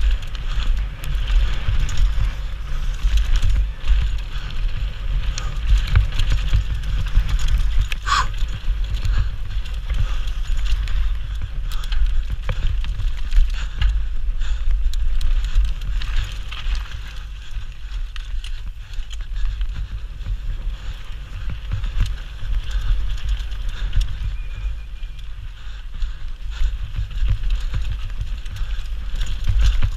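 Enduro mountain bike descending a dirt and rocky downhill track at speed: tyres rolling and the bike rattling over bumps, with constant heavy wind rumble on the microphone. A short high squeak about eight seconds in.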